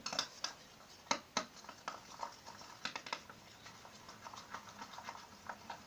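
Sticky shampoo-and-borax slime mixture being squished and pulled by hand, giving irregular small clicks and sticky crackles.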